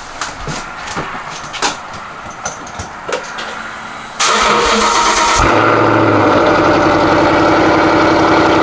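A few light clicks and knocks, then about four seconds in the 2015 Mustang GT's 5.0 L V8 is cranked, catches within about a second and settles into a loud, steady fast idle, heard at the tailpipes. It is a cold start after months in storage.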